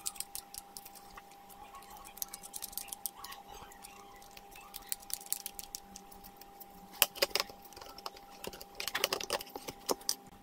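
Small screwdriver turning the side mounting screws of a 2.5-inch SSD: faint, irregular metal ticks and clicks, with louder clusters of clicks about seven seconds in and again around nine seconds. A faint steady hum runs underneath.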